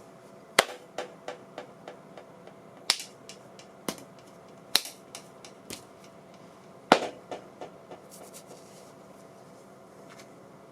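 Sharp clicks or taps fed through an audio mixer's echo effect: four loud clicks, each trailing off in a string of quieter, evenly spaced repeats that fade away, over a faint steady hum.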